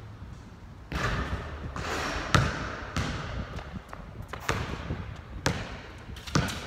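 Basketball being dribbled on a hard outdoor court: a series of irregularly spaced thumps, the loudest about two and a half seconds in.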